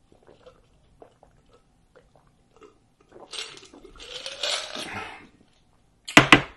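Ice cubes clinking and sliding in a drinking glass as it is tipped up to drink, in a rattling stretch of about two seconds in the middle. A sharp, loud clack about six seconds in as the glass comes down.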